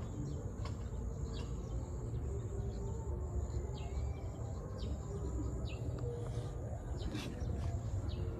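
Outdoor ambience: a steady high-pitched insect drone, with short bird chirps scattered throughout, over a constant low rumble.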